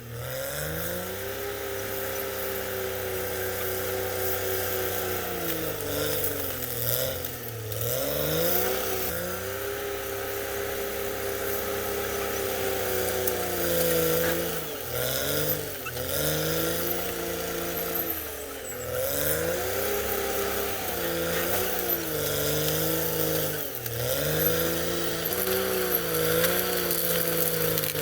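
Caterpillar D6R XL bulldozer's diesel engine working hard, its pitch sagging and recovering again and again every few seconds as the load changes.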